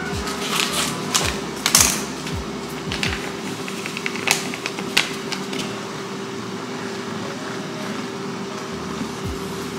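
Spatula scraping and knocking against a nonstick frying pan of cooking ground chicken, with a string of sharp clicks in the first half, over background music with a steady low beat.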